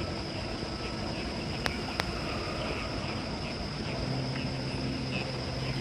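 Night insects chirring steadily in a high, even trill. Two sharp clicks come about two seconds in, and a low steady hum joins about four seconds in.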